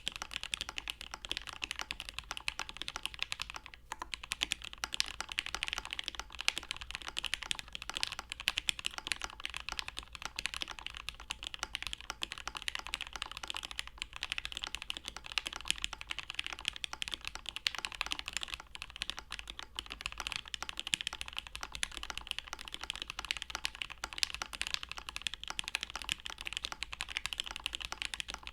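Steady, fast typing on a Nunu custom mechanical keyboard with lubed Marshmallow v1 linear switches, an FR4 half plate and GMK keycaps. Keystrokes run in a dense, continuous stream.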